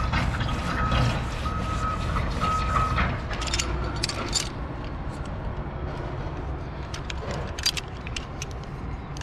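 Steady low rumble of distant traffic, with an intermittent beeping tone during the first three seconds, then scattered sharp clicks and taps from about three seconds in.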